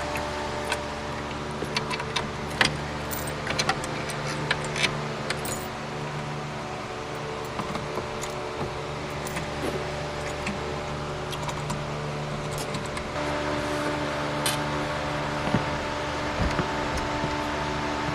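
Scattered light metallic clinks and rattles of hand tools being handled, over a steady mechanical hum that steps up and changes tone about thirteen seconds in.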